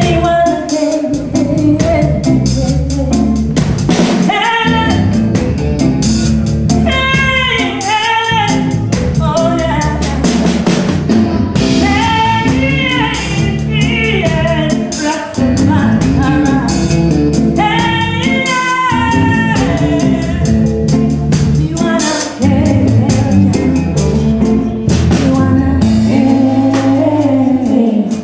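Live ragga band with drum kit, and a woman singing melismatic lines over the steady beat.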